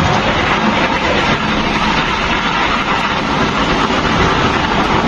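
A string of firecrackers going off: a loud, dense, continuous crackle that does not let up.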